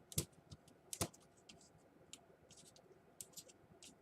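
Sharp plastic clicks and light scratching from a laptop's keyboard and plastic case being pried and handled: two louder clicks in the first second, then a scatter of faint ticks and scrapes.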